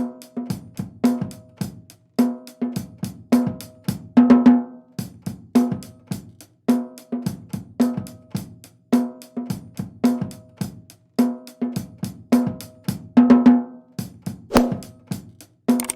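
Drum kit playing a steady repeating beat of kick, snare and hi-hat, with a busier fill about four seconds in and again a few seconds before the end, and a cymbal crash right at the end.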